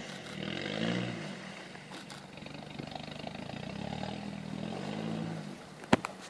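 Nissan Patrol GR 4x4's engine revving up and down twice as it pulls through muddy ruts. A single sharp click near the end is the loudest sound.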